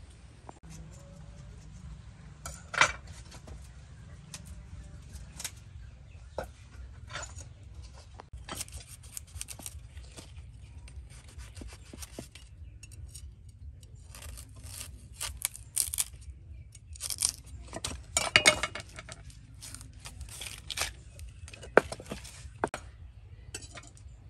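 Knife cutting hands of green bananas off the bunch's fleshy stalk: a series of short, crisp cuts and snaps at irregular intervals, one sharp one about three seconds in and a busier run past the middle.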